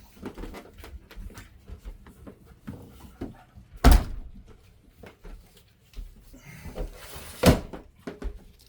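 Two loud, sharp thumps, about four seconds in and again three and a half seconds later, with lighter knocks and rustling between them.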